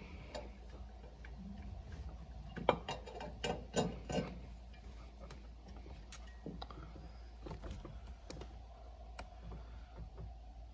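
Light clicks and knocks as an anodized metal intake horn is worked down into a diesel engine bay and onto its mounting studs, with a cluster of them around three to four seconds in and only scattered ticks after.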